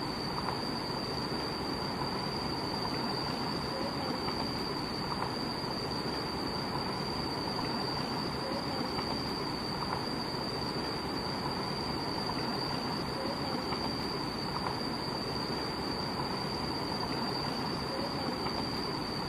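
Steady rushing of stream water over rocks, with a constant high-pitched whine over it.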